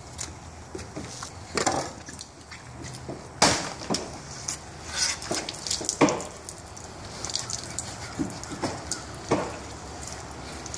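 Long fillet knife slicing and scraping through amberjack fillets, in irregular strokes, with a few sharp knocks, the loudest about three and a half seconds in and again about six seconds in.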